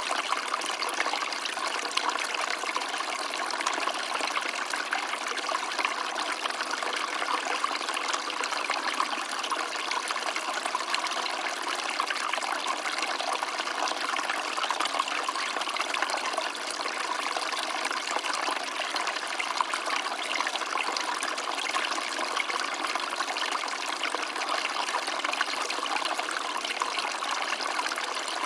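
Small stream of water trickling and babbling steadily over rocks.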